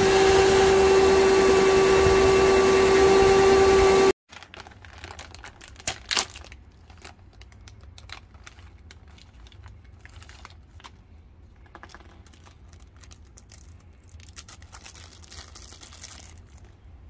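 A vacuum cleaner runs steadily with a whine, sucking dirt and debris out of the fuel injector bores, then cuts off suddenly about four seconds in. After that come quiet handling sounds: light rustling and a few small clicks.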